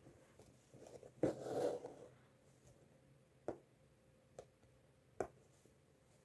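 Faint hand-embroidery sounds: a needle and thread pulled through fabric held taut in an embroidery hoop, stitching the horizontal lines of a grid. A brief rustle a little over a second in, then a few scattered light clicks.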